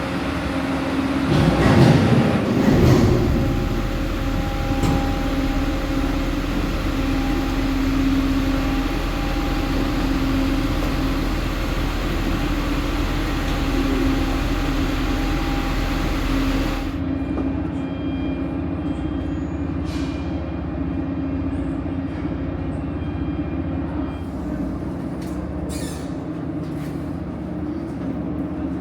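Steady mechanical drone of a vehicle in motion, heard from inside, with a few held hum tones. There is a louder rushing stretch a second or two in, and the high hiss drops away abruptly about 17 seconds in.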